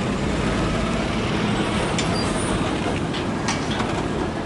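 Steady roar of a river in flood, fast turbulent water rushing without letting up, with a few faint ticks over it.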